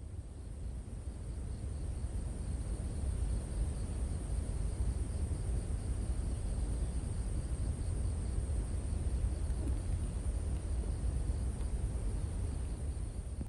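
Forest ambience: a steady high-pitched insect buzz with a fainter, rapidly pulsing insect chirp beneath it, over a low rumble, fading in over the first couple of seconds.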